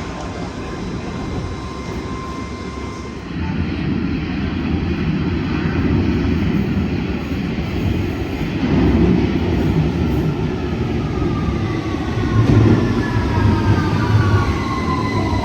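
London Underground 2009 Stock Victoria line train running into a station, its low rumble building louder, with several whining tones falling steadily in pitch over the last few seconds as it brakes. In the first few seconds, the tail end of a 1973 Stock Piccadilly line train, with a steady tone, cuts off.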